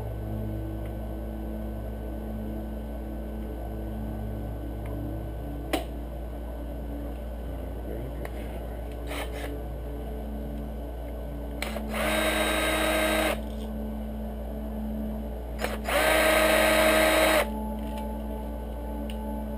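Small electric screwdriver running in two bursts of about a second and a half each, a steady motor whine, backing out the screws of an XS650's breaker cover.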